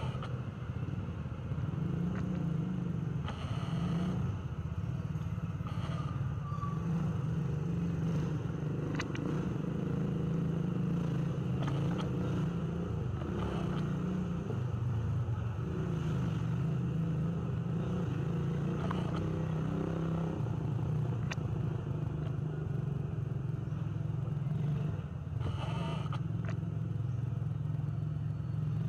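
A steady low motor rumble, with a few short clicks and brief rustling noises.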